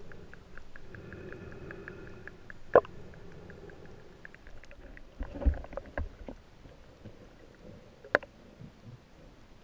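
Underwater sound picked up by a camera while snorkeling: a steady muffled wash with a train of faint, evenly spaced clicks, a sharp knock about three seconds in and another near the end, and low bumps a little after the middle.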